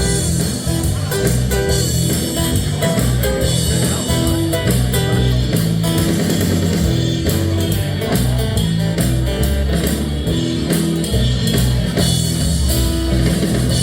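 Live band playing an instrumental break in a rock song, with guitar to the fore.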